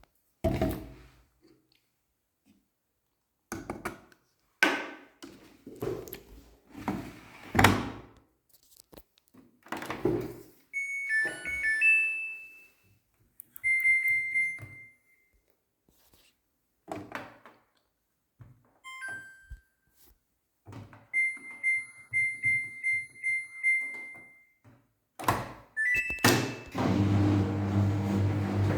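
Samsung washing machine being set up: several dull thuds and knocks, then control-panel beeps (single beeps, one longer tone and a quick run of beeps) as buttons are pressed. Near the end the machine starts up with a steady low hum.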